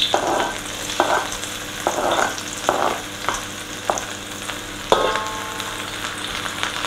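Chopped garlic sizzling in hot oil in a steel wok, with short scrapes of a metal spatula every half second to a second. About five seconds in the spatula knocks on the wok once, with a short metallic ring.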